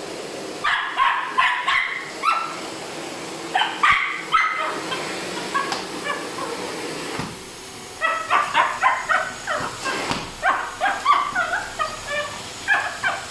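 Schipperke dog barking and yipping in quick high-pitched runs: a few bursts in the first seconds, then a longer, busier run through the second half.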